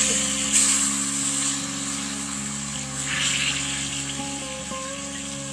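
Fresh taro leaves and stems dropped into hot oil in an iron kadai, sizzling loudly as they land, with a second surge of sizzling about three seconds in as they are stirred with a metal spatula.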